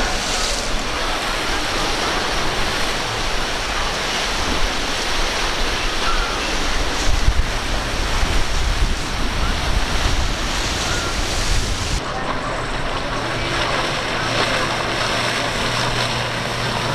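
Waves breaking and surging, with wind rumbling on the microphone. About twelve seconds in, the sound changes abruptly and a low steady hum joins the surf.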